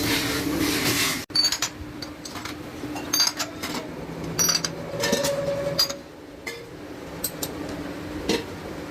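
A steady machine hum that cuts off abruptly about a second in, then scattered metallic clinks and light taps of sheet-metal kettle parts being worked and handled, some with a short high ring.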